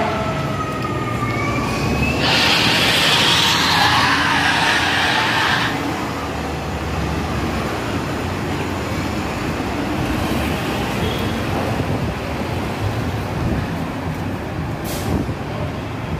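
Hybrid-electric city bus passing close and pulling away, its drive giving a whine that glides in pitch, with a loud hiss of about three seconds starting about two seconds in, then steady street traffic noise.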